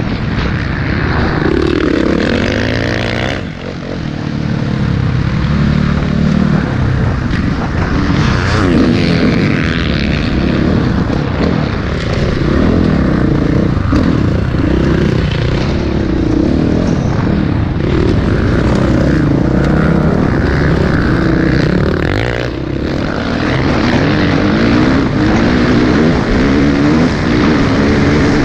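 Motocross dirt bike engine revving hard and falling back over and over as it is ridden around the track and shifted through the gears. The throttle is briefly shut off about three and a half seconds in and again a little after twenty-two seconds.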